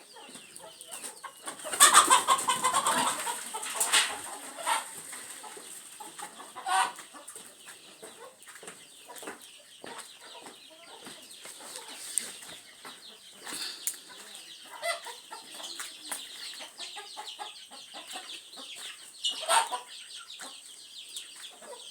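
Kienyeji (Kenyan local-breed) chickens clucking, with a louder burst of squawking about two seconds in and a few shorter loud calls later.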